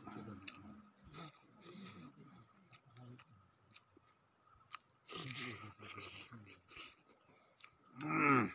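A person chewing and eating rice by hand: irregular wet smacking and clicking mouth sounds. Near the end there is a short, wavering hum, the loudest sound.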